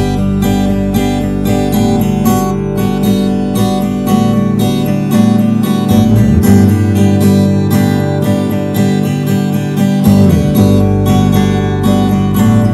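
Smooth country song with strummed acoustic guitar and a steady beat; the bass drops away for a few seconds in the middle.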